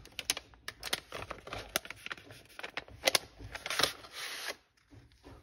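A pack of paper stickers being handled, its paper and packaging rustling and crinkling with many small clicks and taps. It dies down near the end.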